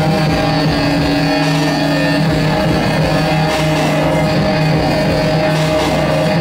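Loud live music, dense and continuous, with several steady droning tones held underneath.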